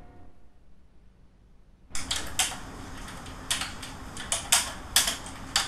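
Typing on a computer keyboard: irregular key clicks, some single and some in quick runs, starting about two seconds in.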